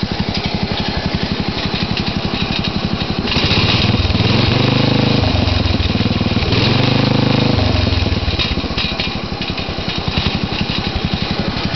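Agway lawn tractor engine running at a fast, evenly pulsing idle through an upright exhaust stack whose flapper cap is rattling. About three seconds in it is revved up and held for a few seconds, then drops back to idle at about eight seconds.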